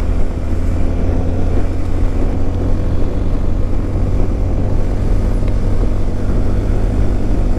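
Motorcycle engine running at highway speed, a steady low hum under an even rush of wind noise over the camera microphone.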